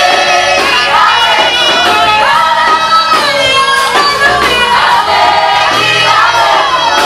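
Gospel song sung in Swahili by a group of voices, with instrumental accompaniment.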